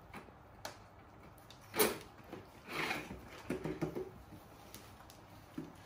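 Scattered knocks and rustling from baby monkeys moving on hollow plastic chairs while pomegranate pieces are handled. The loudest is a sharp knock a bit under two seconds in, followed by a short rustle and a brief low pitched sound.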